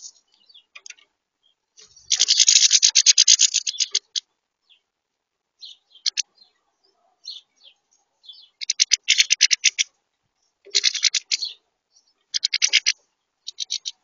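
Goldfinches twittering close by in short bursts of rapid notes. The longest burst lasts about two seconds, starting about two seconds in, and four shorter bursts come in the second half.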